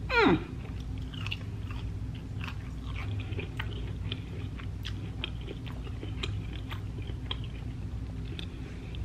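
Close-up chewing of a mouthful of roasted asparagus, with small wet clicks and light crunches. It opens with a short falling hum of "mmm".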